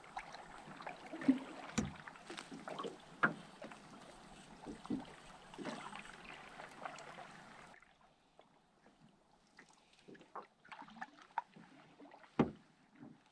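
Water lapping and slapping against a small boat's hull, with scattered knocks and clunks over a steady hiss. The hiss drops away suddenly about eight seconds in, leaving paddle splashes and one loud knock near the end.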